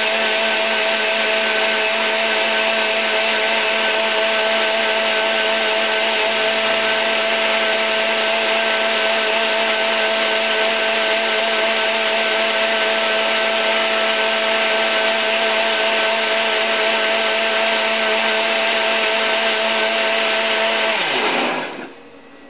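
Countertop blender running steadily, blending a smoothie of frozen fruit and greens, with a constant whine over a churning wash. About 21 seconds in it is switched off, and the motor spins down with a falling pitch.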